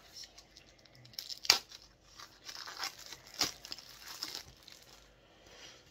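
Plastic seal being torn off the top of a Funko Soda collectible can, crinkling, with two sharp clicks, one about a second and a half in and another about two seconds later.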